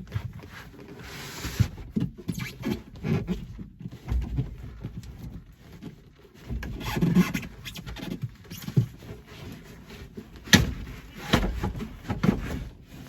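Irregular metal clinks, knocks and rustling from hand work on a tractor's steel hydraulic line and its fittings, with two sharper knocks about ten and a half and eleven and a half seconds in.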